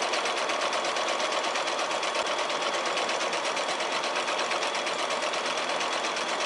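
Domestic sewing machine running steadily at speed, its needle stitching with a rapid, even rhythm through the layered backing, batting and fabric strips of a quilt block.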